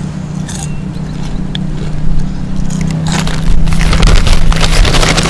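Chewing on crunchy onion rings, then from about three seconds in a loud crinkling rustle of a paper carton and paper bag being handled, over a steady low engine drone.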